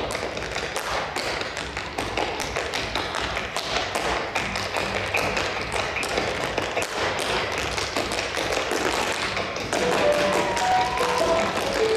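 Tap shoes striking a stage floor in quick, dense rhythms of taps. A melody comes in near the end.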